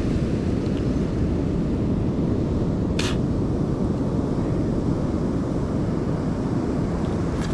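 Steady rumble of wind on the microphone mixed with ocean surf, with one short click about three seconds in.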